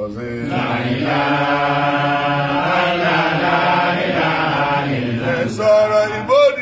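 Men chanting Islamic dhikr (zikir) together in a long, drawn-out chant. Near the end one man's voice carries on alone with a melody that rises and falls.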